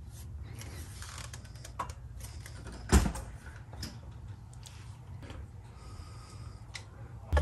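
Light clicks and scrapes of hands and a long metal bar working an Infiniti Q50's rear differential loose, with one sharper metallic knock about three seconds in, over a low steady hum.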